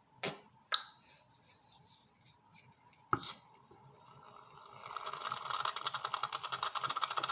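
A few sharp clicks and knocks as a can is handled, then from about five seconds in a fast, crackling spray hiss: shaving foam being sprayed out of an aerosol can.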